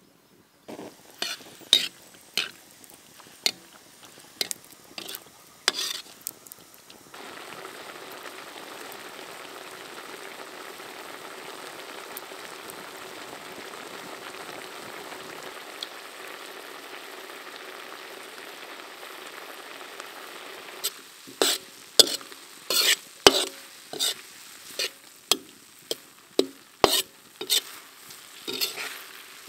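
Sharp knocks and clatter of a kitchen utensil for the first few seconds, then a steady sizzle of zucchini cake batter frying in hot oil in a pan, starting about seven seconds in. Near the end a quick run of knocks of a utensil against the pan over the continuing sizzle.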